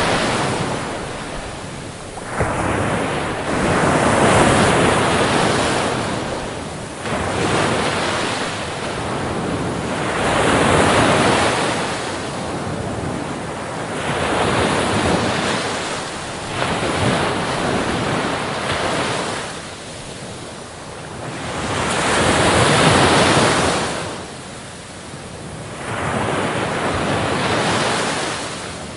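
Waves washing in and out in slow surges, each swell of rushing water rising and falling away every three to six seconds.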